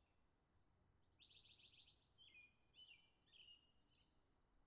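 Faint song of a small songbird: a phrase of high whistled notes with a fast trill about a second in, followed by a few lower notes, over near-silent room tone.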